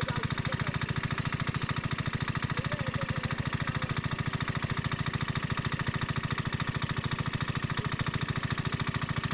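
Small engine-driven water pump running steadily with a rapid, even putter that does not change.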